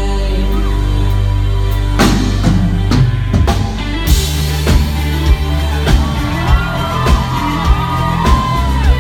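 Live indie pop band playing loudly, with held low bass notes. A big drum hit comes about two seconds in, and the full band kicks in about four seconds in with a steady drum beat. From about six seconds a lead electric guitar line bends and wavers in pitch.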